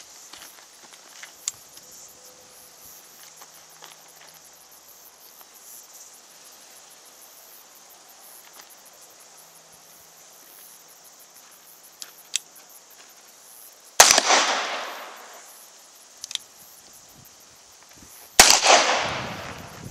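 Two revolver shots from a long-barrelled stainless revolver, about four and a half seconds apart, each trailing off for more than a second afterwards. A few faint clicks come before and between them.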